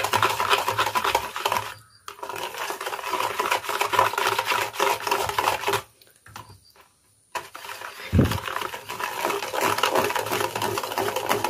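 Wire whisk beating a thin liquid cake batter of sugar, oil, coffee and soured milk in a plastic bowl: a fast, rattling run of strokes while the sugar is dissolved. The whisking stops briefly about two seconds in and again for over a second around six to seven seconds in, and there is a low thump near eight seconds.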